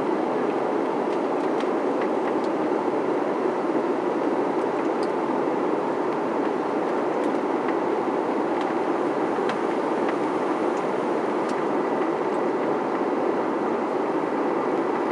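Steady rushing noise of airflow and engines inside a jet airliner cabin as the plane descends through cloud.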